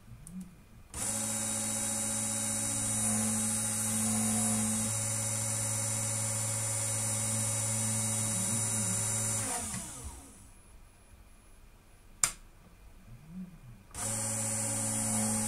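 Small DC-motor drill spindle of an automated PCB drilling machine starting abruptly about a second in, running steadily, then winding down with falling pitch. A single sharp click comes in the quiet gap after it, and the drill starts up again near the end.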